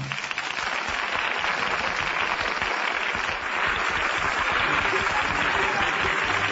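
Audience applauding, breaking in as the choral and orchestral number stops and holding steady.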